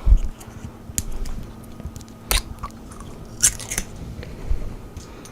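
Scattered light clicks and knocks of kitchen utensils being handled, about half a dozen spread irregularly over a few seconds, with a faint steady hum underneath.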